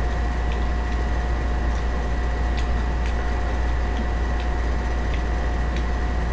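Electric desk fan running with a steady hum and hiss, over a constant electrical tone, with a few faint clicks of chopsticks picking at food.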